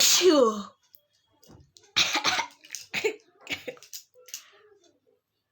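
A person sneezes loudly, the voice falling in pitch at the end of the sneeze. About two seconds later comes a second sharp sneeze burst, then several shorter breathy bursts. The sneezes are set off by tickling the inside of the nose with a rolled piece of paper.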